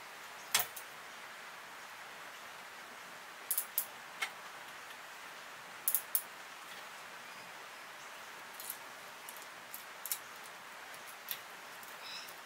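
Scattered small, sharp clicks and ticks, about a dozen at irregular intervals, from handling a baitcasting rod and reel and rigging a small lure on the line, over a steady faint hiss.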